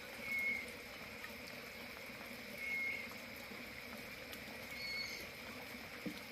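An animal's short high call, repeated three times about every two and a half seconds over a steady faint background hum, with a brief knock near the end.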